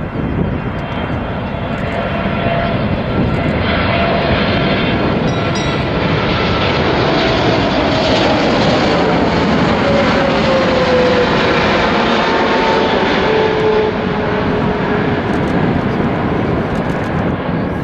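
Jet engines of a Boeing 777 airliner on final approach, a loud steady rush that swells as the plane nears, with engine tones gliding down in pitch about halfway through as it passes.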